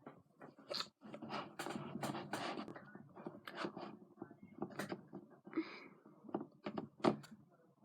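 Glue-based slime mixture being stirred in a bowl after contact solution was added: irregular scrapes and taps, with a few longer scraping strokes about two seconds in.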